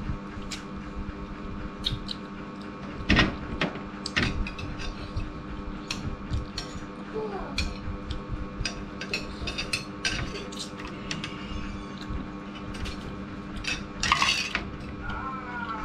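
Metal spoon and fork clinking and scraping against a bowl and plate while eating, in scattered short clicks, with a louder clatter about fourteen seconds in. A steady hum runs underneath.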